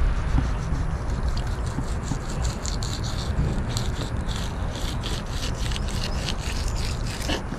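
Fillet knife scraping along a lionfish fillet against a wooden board, separating the soft skin from the meat in quick repeated strokes, over a steady low rumble.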